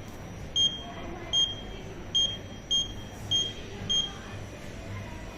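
A Kleemann lift's button panel beeping: seven short, high beeps at uneven intervals of well under a second, over a low hum.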